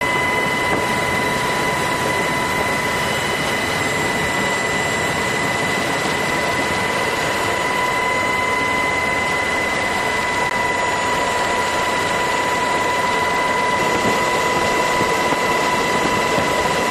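MH-60S Sea Hawk helicopter in flight, heard from aboard: a steady loud rush of rotor and engine noise with a constant high whine running through it.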